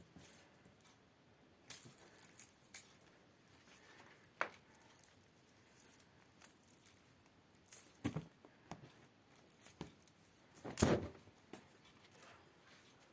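Dried grass spikelet rustling and crackling as cats bat and bite at it: scattered small dry crackles and clicks, with a longer, louder scuffle about eleven seconds in.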